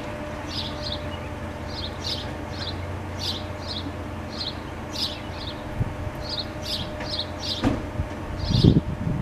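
Federal Signal STL-10 siren winding down slowly after its blast, its rotor turning with a low, steady drone. Short high chirps come over it two or three times a second, and a brief low rumble comes near the end.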